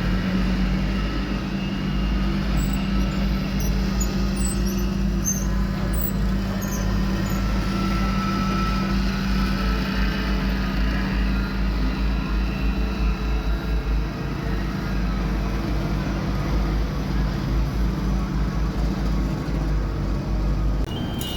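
Heavy road-construction machinery engines running steadily at a work site, a continuous low rumble with an even engine hum. A reversing alarm starts beeping right at the end.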